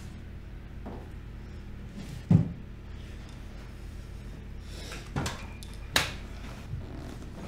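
A wooden desk drawer shuts with a heavy thud about two seconds in, over a low steady hum. Later come two sharp metallic clicks, a second apart, as a revolver is handled, then a faint knock.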